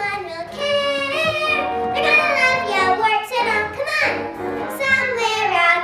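Children singing a musical-theatre number over instrumental accompaniment, their notes bending and gliding in pitch.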